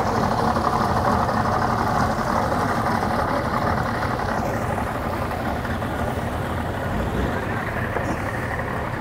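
Yamaha 250 outboard motor idling as the center-console boat moves off at slow speed, a steady low engine hum that fades slightly as it pulls away.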